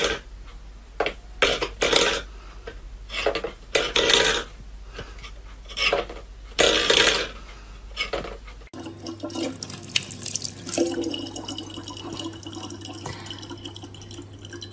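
Water splashing in short, irregular bursts. About two-thirds of the way in it cuts to a quieter, steady hum.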